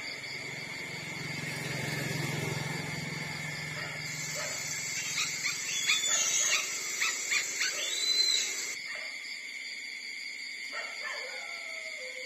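Newborn puppies whimpering and squeaking while nursing, with a quick run of short, high-pitched cries in the middle. A steady high-pitched tone sounds underneath.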